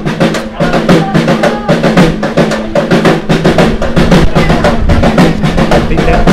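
Supporters' drums beating a steady, continuous rhythm of loud strokes at a football match.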